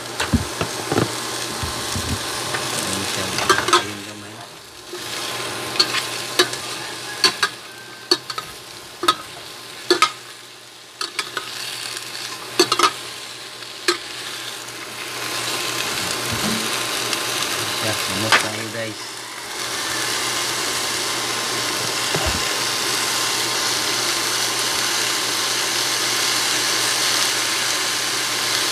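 Cubed squash frying in hot oil in a stainless steel pot, sizzling steadily while it is stirred, a utensil clinking sharply against the pot many times in the first half. Near the end the sizzle becomes louder and fuller.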